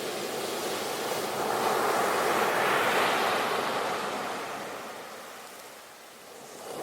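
Sea waves breaking and washing on the shore: the surf swells to a crest about three seconds in, then ebbs away before the next wave begins to build near the end.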